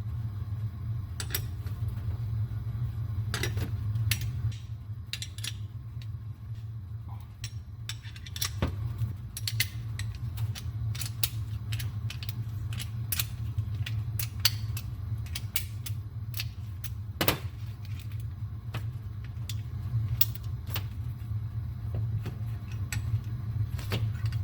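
Scattered metal clinks and clicks of hand tools and steel parts as a pulley is unbolted from a mower's blade brake bracket, over a steady low hum.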